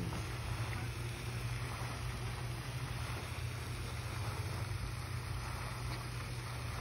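Steady wind rumble on a phone's microphone, an even outdoor noise without distinct events.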